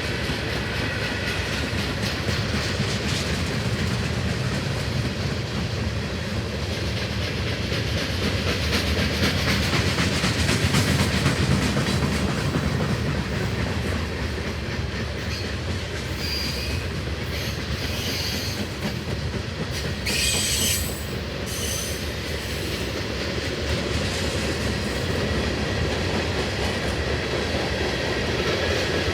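Long CSX freight train's cars rolling past in a steady rumble, with wheels clicking over the rail joints. Brief high-pitched wheel squeals come a little past halfway through.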